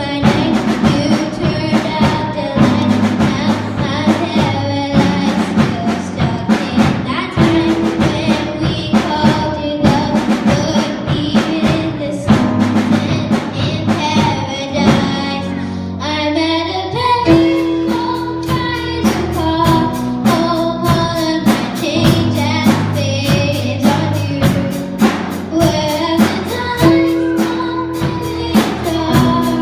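Live band playing a pop-rock song with a singer: drum kit keeping a steady beat under piano and bass.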